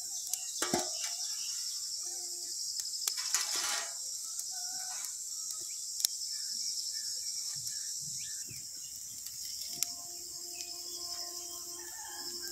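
Steady high chorus of crickets, with a few scattered clicks and knocks over it.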